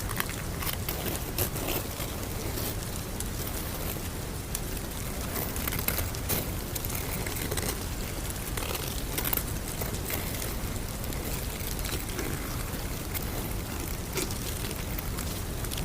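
Steady rushing noise ambience with small crackles and pops scattered all through it.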